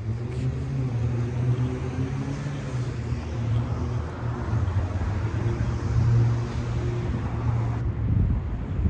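A motor vehicle running close by on a city street: a steady low engine hum with a rushing noise over it.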